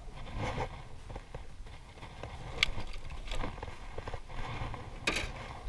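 Handling noise from fish gear in a boat: a few sharp clicks and knocks as a metal lip-gripper and a landing net are worked, over a steady low rumble.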